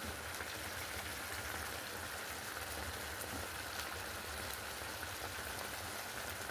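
Tomato and yogurt sauce simmering in a frying pan: a steady soft sizzle with faint fine crackles.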